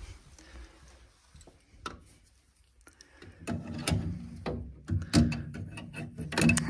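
An 18mm ratchet ring spanner clicking and knocking against metal fittings inside a gas boiler as it is worked onto a nut. A few faint clicks at first, then from about halfway a quick, louder run of clicks and knocks.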